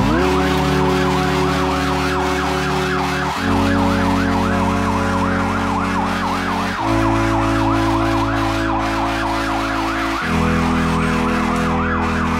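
Fire engine's electronic siren on a fast yelp, its pitch warbling up and down about three or four times a second, over low sustained tones that shift in pitch every few seconds.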